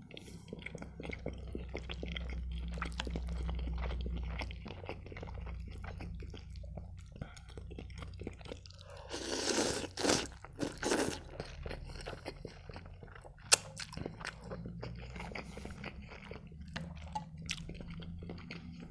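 Close-miked chewing and wet mouth sounds of a man eating instant noodles, with a few loud slurps of noodles about halfway through and a single sharp click a few seconds after them.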